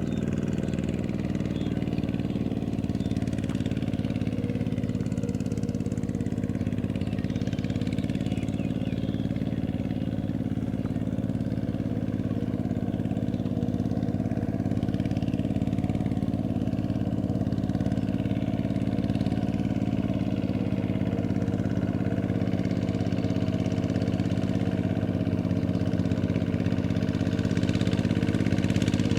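RZ 150 walking tractor's engine running steadily, getting slightly louder near the end.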